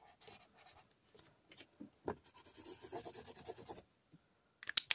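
Felt-tip marker pen rubbing and scratching across paper in faint colouring strokes, steadiest for about a second past the middle. A few sharp clicks come near the end.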